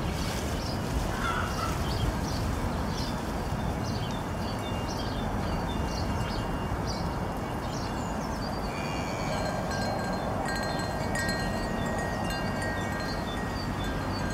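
Wind chimes ringing over steady outdoor wind noise: short high strikes through the first half, then several high tones held and ringing on from about nine seconds in.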